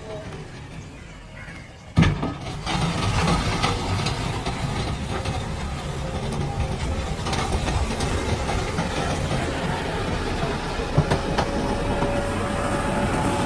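Heavy JCB earthmoving machine at work: its diesel engine running under load with scattered metallic clanks. The sound jumps in with a loud knock about two seconds in, after a quieter start.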